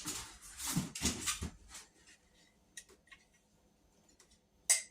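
Rustling and handling of packaging and loose table-saw parts for about two seconds, then a few light clicks and a sharper knock near the end.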